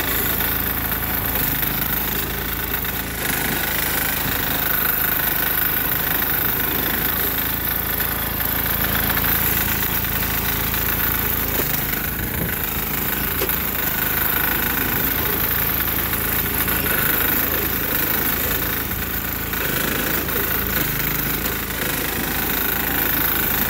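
6 hp single-cylinder diesel engine of a Sears Suburban garden tractor running steadily, its note shifting several times as it works in heavy snow.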